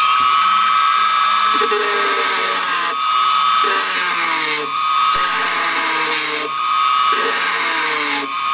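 Dremel rotary tool with a cut-off wheel running at high speed with a steady high-pitched whine, grinding a flat spot into a metal push-pull rod. The grinding hiss drops away briefly about three times.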